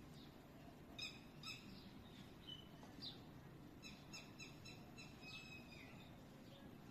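Faint bird chirps in the background: two short chirps about a second in, a quick run of high notes around four to five seconds, and a few short falling whistles.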